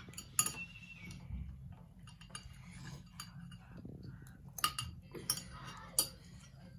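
Metal spoons clinking and scraping against bowls and a plate as rice is eaten, with several sharp clinks spread through.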